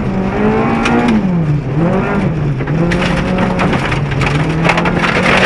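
Honda Civic VTi 1.6 rally car's four-cylinder DOHC VTEC engine heard from inside the cabin at speed, its revs dipping and climbing twice in the first few seconds, then holding steady. Gravel stones clatter and ping against the underbody and wheel arches throughout, thickest in the second half.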